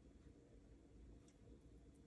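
Near silence: low room tone.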